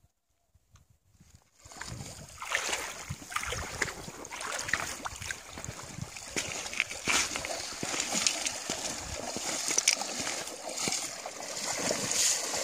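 Near silence, then from about two seconds in, continuous splashing and sloshing of shallow river water from a hooked trout thrashing at the surface and the angler wading as he plays it.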